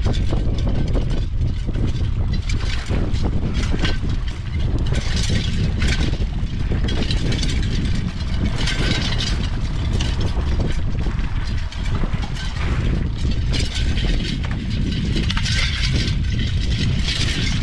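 Boat motor running steadily at trolling speed under a heavy low rumble of wind on the microphone, with bursts of hiss that come and go.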